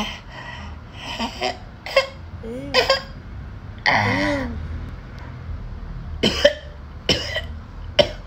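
A person coughing and clearing their throat in a string of about seven short bursts. Two of them, a few seconds in, are drawn out with a wavering pitch.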